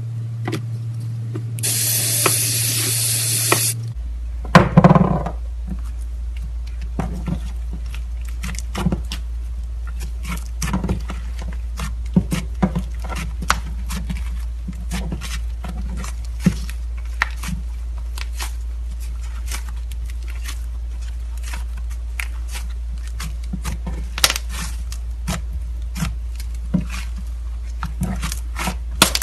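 Slime with clay mixed in being kneaded and squeezed by hand, giving many small sticky clicks and pops, over a steady low hum. A hiss runs for about two seconds near the start.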